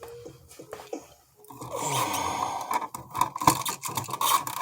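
A run of clicks, taps and scraping handling noise, sparse for the first second and a half and then dense over a steady rustling hiss.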